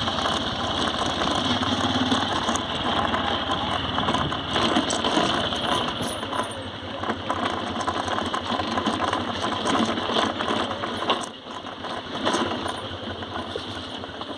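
A Honda Livo 110 cc motorcycle with a single-cylinder four-stroke engine, running while rolling downhill over a rough dirt track, its body and parts rattling and clattering constantly over the bumps. The level dips briefly about 11 seconds in.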